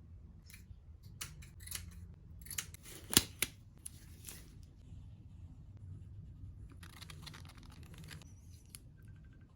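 Scissors cutting fiberglass cloth: a run of sharp snips, the loudest about three seconds in, then about a second of steady cutting near the end.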